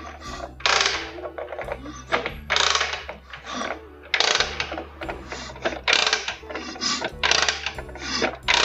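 Metal ratcheting mechanism worked in repeated strokes, mostly in pairs about every one and a half seconds.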